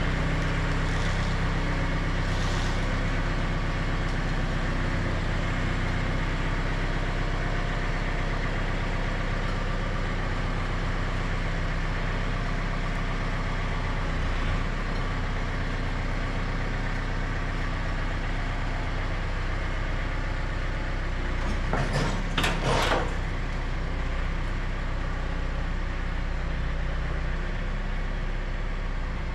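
Tractor engine running steadily while towing a trailer-mounted sawmill slowly out of the shop, with one short, loud clatter about two-thirds of the way through.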